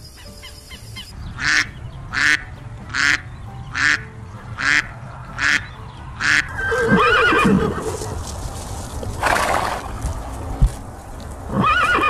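A run of eight short, evenly spaced noisy bursts, about one every 0.7 seconds, then a horse whinnying about seven seconds in, followed by a short noisy burst and another rising call near the end.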